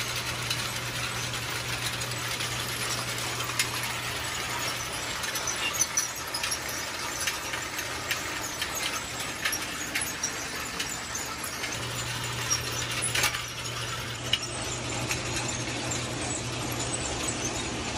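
Hay bale elevator running: its electric motor hums steadily while the steel drag chain rattles along the track with frequent sharp clicks, carrying small square bales up into the loft.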